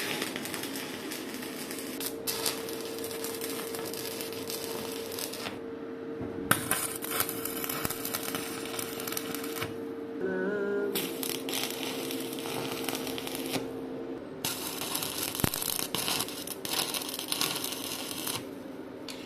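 Electric arc welding: a crackling sizzle from the arc in several runs of a few seconds each, stopping briefly between welds, over a steady hum.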